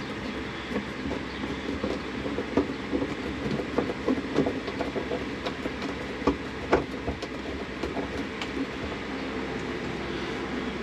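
Irregular light clicks and knocks of screws and a hand tool being worked back into a car's interior trim, over a steady hum of background noise.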